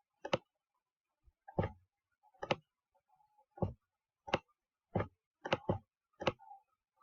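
A series of sharp, short clicks at an irregular pace, about ten in seven seconds, several coming in quick pairs.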